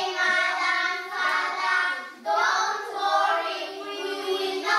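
Children singing a song in phrases, the last ending on a long held note.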